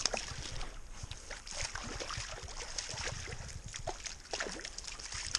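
Small splashes and sloshing water as a hooked trout thrashes at the surface and is scooped into a landing net, with many short, irregular splashy clicks.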